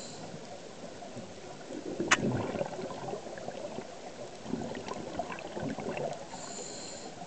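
Scuba diver breathing through a regulator underwater: exhaled bubbles gurgling in bursts, then a high hiss of the regulator's inhale near the end. A single sharp click about two seconds in.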